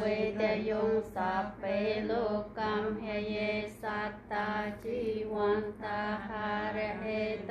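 Buddhist chanting: voices recite a blessing chant in an even, measured rhythm of short syllables.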